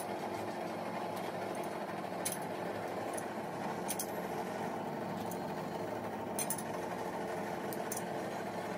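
Metal lathe running with a steady hum, several sharp clicks sounding over it.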